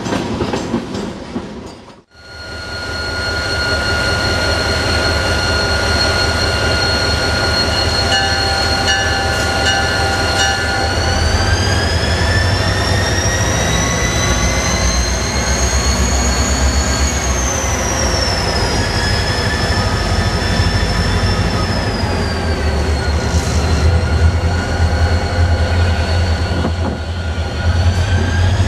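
Freight train cars rolling past at close range: a steady rumble with clicking over the rail joints and high wheel squeal whose pitch slides up and down through the middle and later part. The sound drops out briefly about two seconds in.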